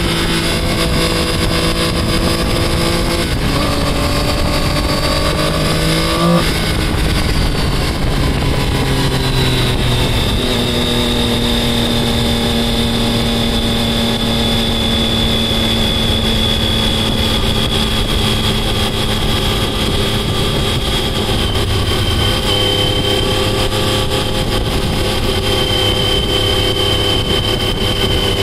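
Triumph sport motorcycle engine heard from the rider's seat, with wind noise: it revs up, drops in pitch on a shift about three seconds in, and revs up again to another shift at about six seconds. Then it runs at a steady, slowly falling pitch, with a change in engine note past the two-thirds mark.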